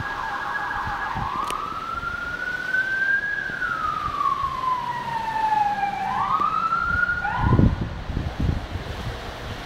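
Emergency vehicle siren: a fast yelp that changes to a slow wail, rising, falling and rising again before cutting off about three quarters of the way through. Low wind rumble on the microphone near the end.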